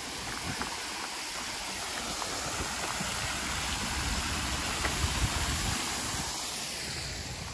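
A steady rushing noise that swells to a peak about five seconds in and fades near the end.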